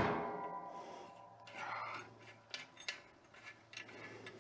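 The ringing of a metal tool set down on the bench fades out, then faint small metal clicks and taps follow as a nut and lock washer are worked off an engine's cam-gear stud by hand. A faint steady hum runs underneath.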